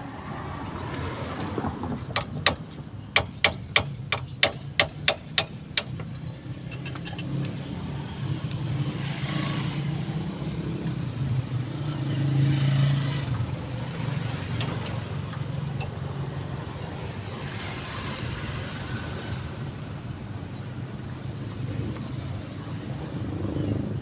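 About ten sharp knocks in quick succession, roughly three a second, over a low steady rumble like a vehicle engine running; the rumble swells briefly about midway.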